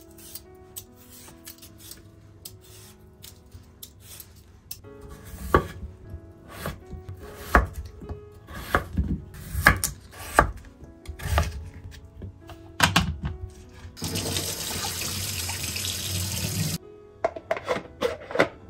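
Chef's knife chopping peeled potatoes on a wooden cutting board, about ten sharp, irregular chops, then a kitchen tap running into a bowl of cut potatoes for about three seconds before it shuts off suddenly. Soft background music underneath.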